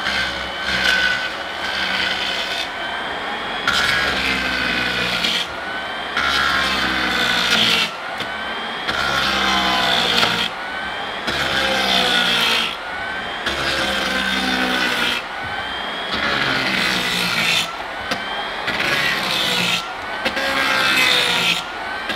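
Lagler Flip edger with a diamond-insert milling attachment spinning at about 3,800 rpm, milling a wood floor: a motor whine that wavers in pitch, with a harsh rasping that starts and stops every second or two as the machine is lifted and set back down on the boards.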